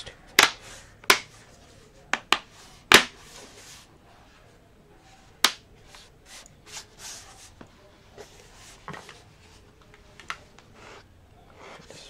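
Lenovo ThinkPad E14 Gen 4 bottom cover snapping onto its retention clips as it is pressed down around the edges: about six sharp clicks in the first three seconds and one more a few seconds later, followed by fainter taps and handling noise.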